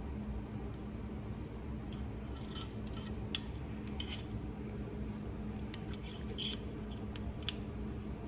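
Small metal parts and tools clicking and clinking against a pistol slide while a front sight is fitted, a scattered series of light ticks with the sharpest just after three seconds in. A steady low hum runs underneath.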